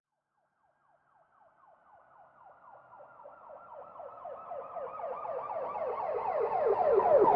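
Police siren in a fast yelp, its pitch sweeping down several times a second. It rises out of silence about a second in and grows steadily louder.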